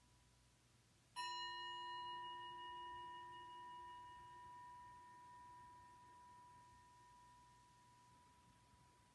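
A bell-like tone struck once about a second in, then ringing with several overtones and slowly fading away over the following seconds.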